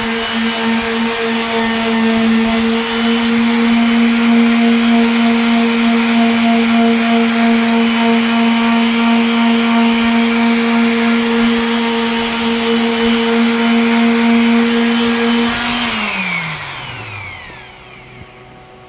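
Electric sander running at a steady, constant pitch while sanding a headlight lens, then switched off near the end and winding down with a falling pitch.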